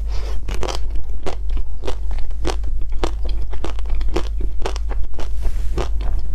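Crisp chocolate coating of an ice cream bar being bitten and chewed close to the microphone, a few crackly crunches a second, over a steady low hum.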